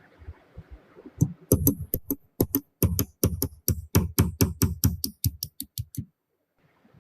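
A rapid, even run of sharp knocks, about four a second, that stops abruptly near the end.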